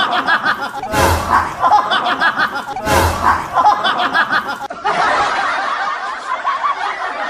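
Laughter, a short burst of laughing repeated in near-identical copies about every two seconds, then giving way to a different stretch of laughter a little under five seconds in.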